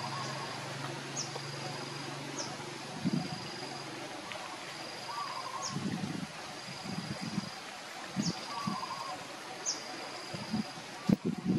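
Outdoor natural ambience: a steady high insect trill broken by short gaps, brief high chirps, and a warbling call repeated three times. A low hum fades out about four seconds in. From about three seconds in there is low, irregular murmuring like distant voices, and a sharp click comes near the end.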